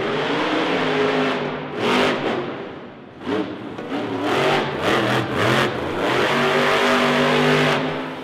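Earthshaker monster truck's engine revving hard several times, its pitch rising and falling with each burst of throttle, with a short lull about three seconds in.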